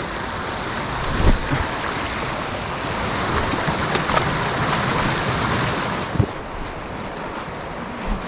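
Shallow creek running over rocks, a steady rush that swells about halfway through, with a couple of short thumps from footfalls.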